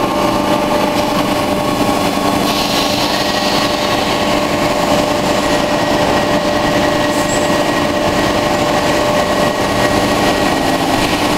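Factory-floor machinery running: a steady mechanical hum and noise with several constant whining tones over it, and a stretch of stronger hiss about three seconds in.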